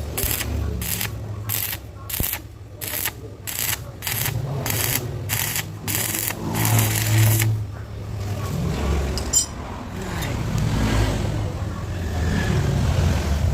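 Rhythmic scraping strokes, about two a second, that stop about six seconds in, followed by a low steady rumble.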